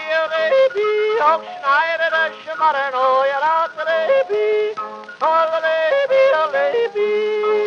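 A male singer yodels on an early Edison wax-cylinder recording from 1899, leaping back and forth between held notes.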